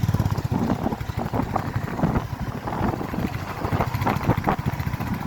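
Motorcycle engine running while the bike rides on, with wind buffeting the microphone.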